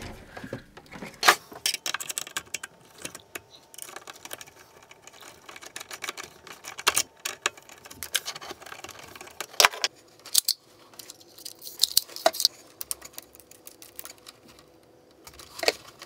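Screwdriver working the small screw terminals of a variable frequency drive's control terminal block: irregular small metallic clicks and rattles, with a few sharper ticks.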